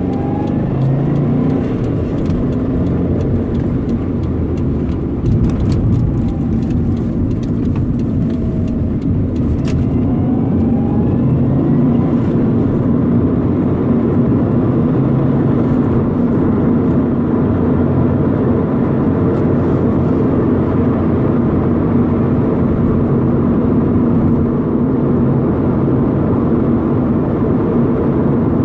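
A stock 2011 Subaru WRX's turbocharged flat-four engine running, a continuous steady drone. Scattered faint ticks and a few brief pitch glides come in the first ten seconds, and the sound is slightly louder and more even after that.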